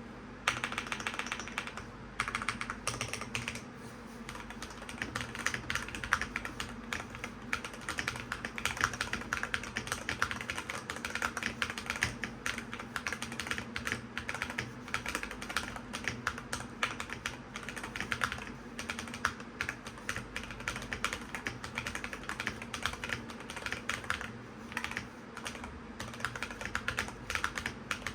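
Fast typing on a modded budget keyboard, a quick run of key clicks with short pauses now and then. A fan hums steadily underneath.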